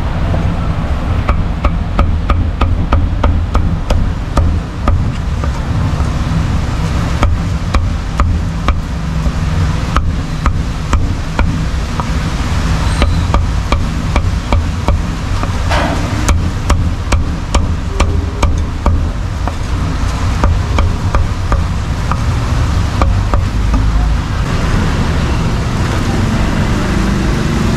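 Cleaver chopping cooked pork offal and roast pork on a thick round wooden chopping block: quick knocks, several a second, that thin out in the second half. A steady low rumble runs underneath.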